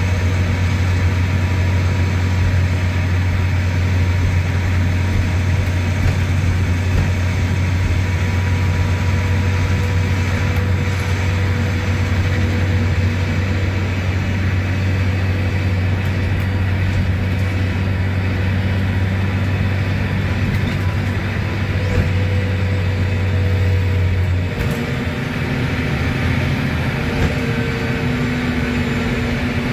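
Mercedes-Benz OM936LA six-cylinder diesel of an articulated city bus running at motorway cruising speed, heard loud in the cabin through the open rear engine hatch as a steady deep drone. About 24 seconds in the low drone drops away and the note changes to a higher hum.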